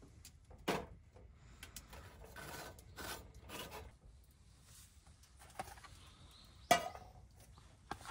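Cookware and ingredients being handled during meal preparation: scraping and rubbing with a few sharp knocks, the loudest knock near the end.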